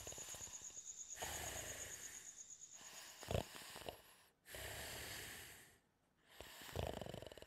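A sleeping cartoon character snoring: slow wheezy breaths in and out, a sharp snort about three seconds in, and a rattling snore near the end.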